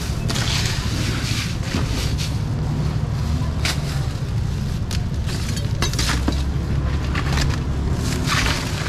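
Busy open-air market background: a steady low rumble with scattered rustles and clattering knocks from goods and bags being handled.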